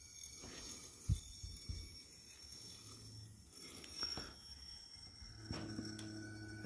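Low handling knocks as a spinning toy gyroscope is taken off its wire hook. About five and a half seconds in, a steady hum of several held tones sets in as the gyroscope's spinning rotor is stood on its pedestal.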